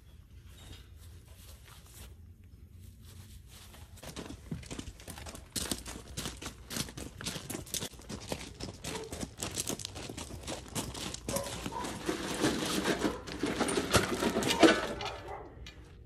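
Footsteps crunching on gravel, starting about four seconds in and growing busier, as a wire-mesh kennel door is carried across the yard, with one sharper knock near the end.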